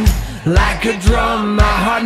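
Pop song playing: a drum beat about twice a second under held notes, between sung lines.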